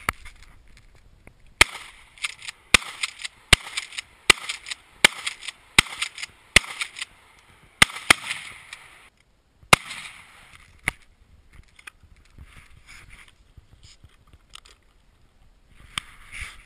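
About eleven shots from a shoulder-fired long gun in quick succession, roughly one a second, each trailing off briefly. The firing stops about eleven seconds in, leaving only faint scattered clicks.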